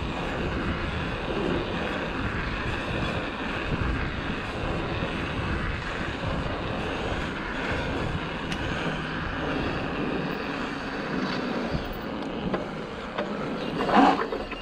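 Steady wind noise on the microphone mixed with the rolling rumble of knobbly Michelin Wild Enduro mountain-bike tyres on tarmac. A brief louder sound comes near the end.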